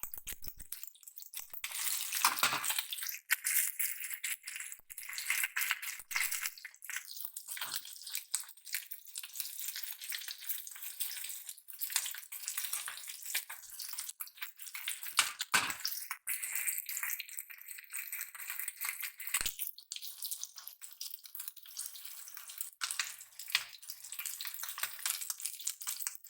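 Small fish pieces frying in hot oil, a continuous sizzle broken by frequent sharp crackles and pops.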